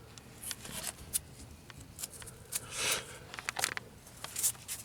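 Scattered light clicks and clinks of hand tools on metal fittings, irregular in timing, with a brief rustle about three seconds in, while a brake line is unbolted at its banjo fitting.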